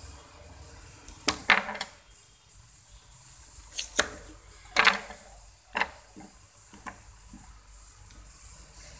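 A kitchen knife cutting through a raw carrot and knocking on a plastic cutting board: several sharp chops in two groups, then a few lighter knocks.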